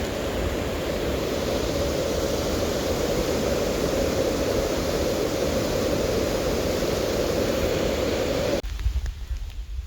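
Water rushing steadily over a dam in a dense, even noise. It stops abruptly near the end, leaving a quieter low rumble.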